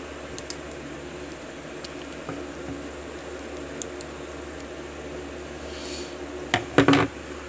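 Faint metallic clicks of a euro lock cylinder being handled and worked at its retaining clips, with a short burst of louder clicks and knocks near the end, over a steady fan-like hum.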